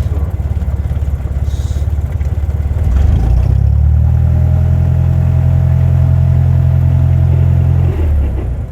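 Cessna 172 Skyhawk's piston engine running; about three seconds in the throttle is advanced and the engine holds a higher steady power for about five seconds, then eases back near the end.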